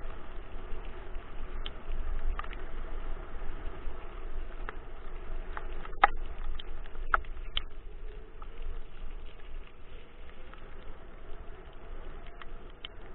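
Dog scooter rolling fast over leaf-strewn asphalt behind two pulling dogs: a steady rolling rumble and rattle with scattered clicks, one sharp click about six seconds in. Wind buffets the scooter-mounted microphone.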